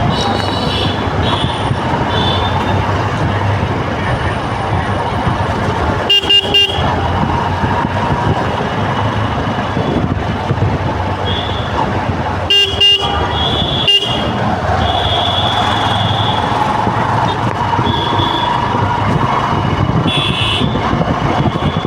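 Road traffic in a jam: engines running, with repeated short horn honks, two of them louder blasts about a third and two thirds of the way through.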